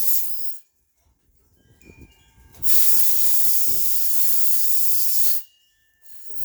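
Compressed-air blowgun blasts hissing through a chainsaw carburetor's small fuel inlet screen to clear it. One blast cuts off just after the start, a longer one of nearly three seconds follows in the middle, and another begins near the end.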